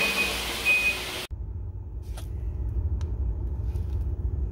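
Two short high electronic beeps over a steady background hiss, then an abrupt change to a low rumble with a few faint clicks.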